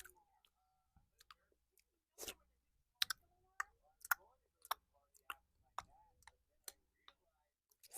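Close-miked ASMR finger licking: a string of short, sharp wet mouth clicks and smacks, coming about once every half second to second.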